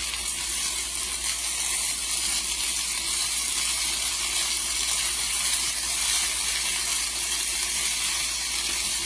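Sliced potatoes frying in oil in a pan, a steady sizzling hiss.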